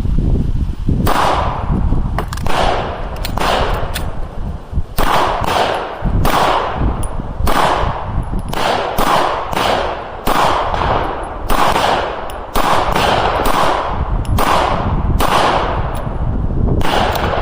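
Handgun shots fired in quick succession, two to three a second, with a few short pauses, each shot followed by a short echo.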